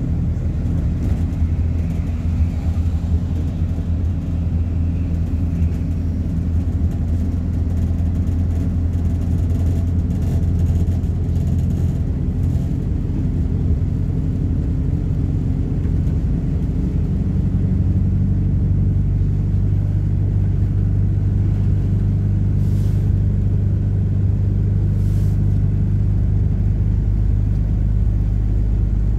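MAZ-226 bus's diesel engine running under way, heard from inside the cabin, with steady road rumble. The engine note changes a little more than halfway through.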